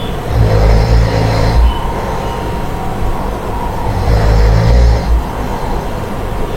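Snoring: two long, loud, low snores about three and a half seconds apart, each with a breathy hiss over it.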